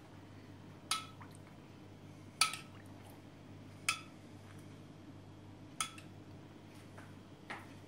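A metal spoon clinking against a stainless steel pan as liquid fat is spooned out: four sharp clinks about a second and a half to two seconds apart, each with a short ring, over a steady low hum.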